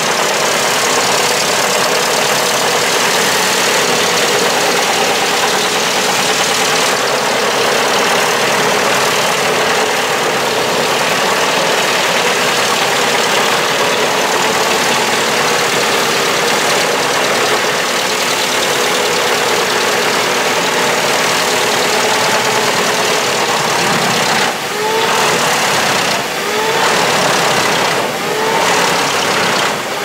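Truck-mounted wood chipper chipping whole logs fed in by a crane grapple: a loud, continuous grinding, shredding noise. Near the end it dips a few times, each dip with a short rising whine.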